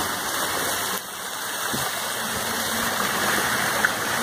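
Steady rush of water falling from the grotto's small artificial cascades, dipping briefly about a second in, with a faint low hum joining about halfway.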